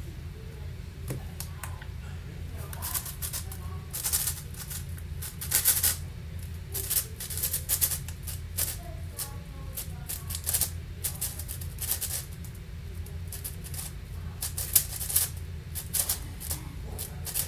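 Plastic clicking and rattling of an Angstrom AoFu WRM 7x7 speedcube being turned fast, in irregular flurries of turns with short pauses between.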